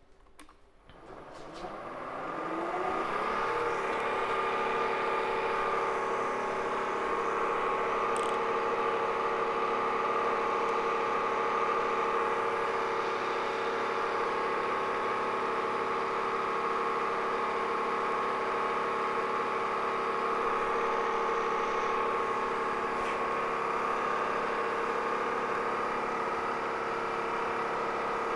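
Milling machine spindle starting up, its whine rising in pitch over the first few seconds, then running steady, set for about 2100 RPM with a 3/16 in carbide ball end mill. It turns freely, not yet cutting.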